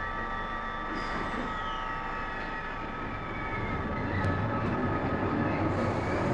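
Glasgow Subway train pulling away from the platform: a steady machine hum and rumble, with a high whine falling in pitch near the start, and the low rumble growing louder from about four seconds in as the train gathers speed.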